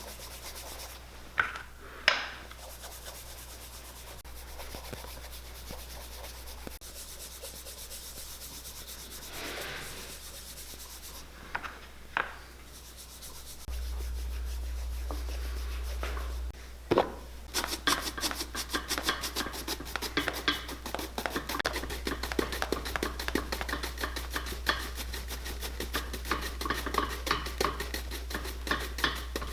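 Cream and wax being rubbed and brushed onto a leather shoe sole, with a few sharp taps along the way. Near the end this turns into fast, rhythmic back-and-forth brushing strokes.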